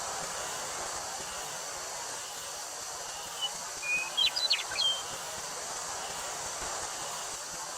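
Steady hiss of wind through a wheat field with a high, even drone of summer cicadas. A bird breaks in a little before halfway with a quick burst of several short chirps and whistles.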